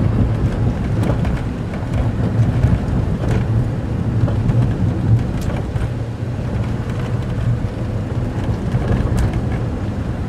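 Daihatsu Move Custom RS turbo kei car driving, with a steady engine and road hum and light irregular knocks: the 'kotokoto' knocking the owner apparently puts down to worn front brake caliper slide pins, with tired engine mounts.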